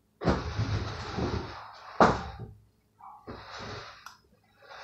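A person blowing air hard into cupped hands held over the mouth: one long rough blast with a sharp puff about two seconds in, then a shorter, quieter blow.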